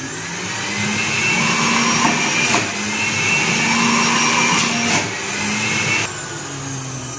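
Philips electric juicer's motor running with a steady whine as watermelon is juiced, with a couple of short knocks about two and a half and five seconds in. About six seconds in it turns quieter and lower.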